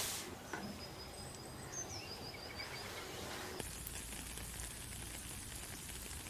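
Rainforest ambience: a high, pulsing insect trill with a few short bird chirps, then a little past halfway the sound changes abruptly to a steady hiss like rain with a low hum beneath.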